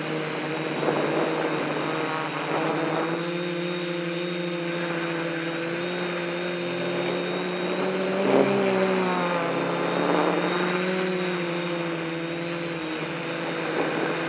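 Multirotor drone's electric motors and propellers whining, heard close from the camera mounted on the drone. The pitch wavers up and down with the throttle, with a sharp surge about eight seconds in.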